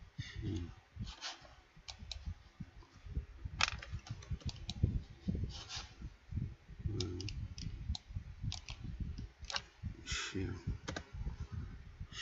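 Typing on a computer keyboard: irregular key clicks while Korean text is entered and a hanja character is chosen from the input-method list.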